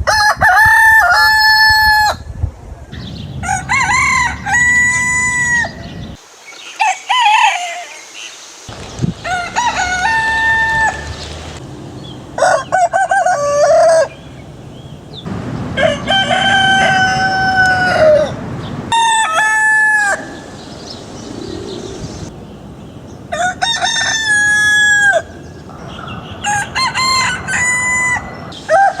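Roosters crowing cock-a-doodle-doo, one crow after another, about nine crows, each lasting one to two and a half seconds. The background changes between crows, so they come from different birds.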